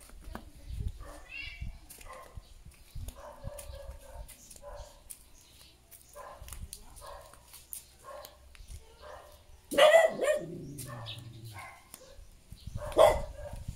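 A dog barking over and over. About ten seconds in comes a much louder call whose tail falls steadily in pitch, and another loud burst follows near the end.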